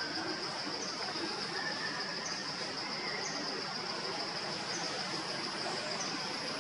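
Steady, high-pitched drone of an insect chorus, with a few brief, faint higher chirps scattered through.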